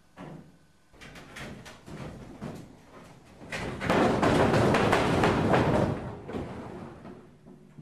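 Knocks and footsteps on wooden stage boards, then a loud scraping noise for about two and a half seconds in the middle, as wood moves against the wooden floor, before it dies back to scattered knocks.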